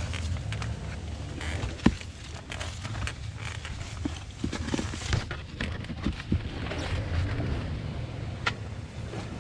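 Enduro dirt bike engine running low at idle while the bike is worked over rocks, with scattered knocks and scrapes of the bike and boots against rock, the sharpest about two seconds in and again near the end.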